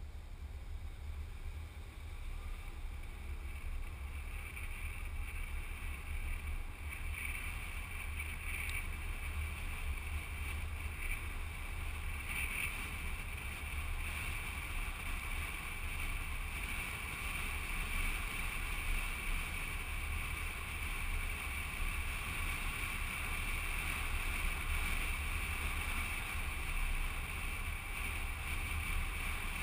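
Wind rushing over a microphone mounted on the outside of a moving car, over the low, steady rumble of the car driving on the road. The hiss grows gradually louder.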